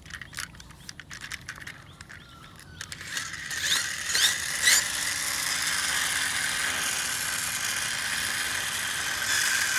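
Plastic clicks as a toy drone-car is handled, then its wheel mechanism is set spinning: a whirring high whine that climbs in a few quick rises about four seconds in, holds steady, and starts to fall in pitch near the end as it runs down.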